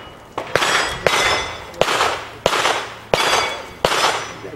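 Handgun shots striking steel targets, about seven in an even string roughly two-thirds of a second apart, each shot followed by the ring of the hit steel plate.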